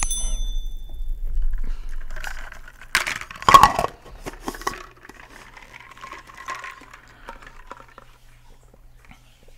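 A plastic straw tumbler being handled close to the microphone: a brief clink at the start, a loud plastic knocking and rattling about three and a half seconds in, then quieter sipping through the straw.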